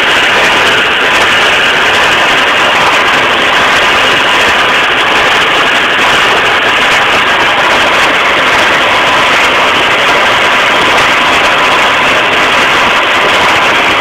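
A tractor engine running with a New Holland 278 square baler working behind it: loud, steady mechanical noise as the baler picks up and bales hay.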